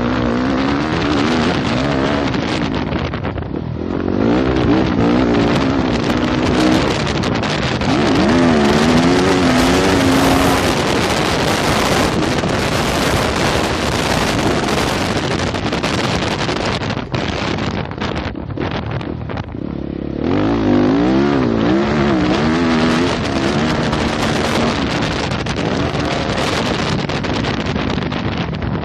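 2015 Yamaha YZ250F's four-stroke single-cylinder engine revving up and down as the bike rides a motocross track, the pitch climbing and falling over and over. The throttle eases off briefly a few seconds in and again for a couple of seconds past the middle, with wind rushing over the microphone.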